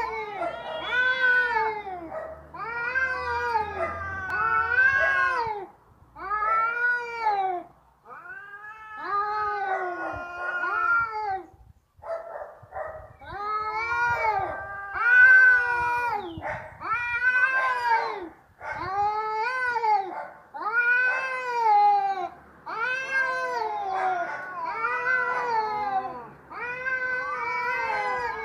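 Domestic cat caterwauling: a long run of drawn-out yowls, each rising and then falling in pitch, coming one after another every second or two, with a short break about twelve seconds in. It is the angry yowl of a cat ready to fight.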